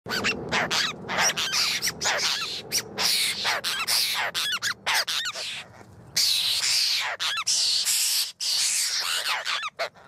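A flock of apostlebirds calling close by: harsh, scratchy calls one after another, overlapping, with a brief lull about halfway through.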